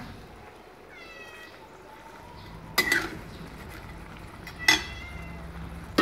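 A cat meows once, about a second in. A metal ladle then clinks sharply against a metal wok a few times as greens are stirred in it.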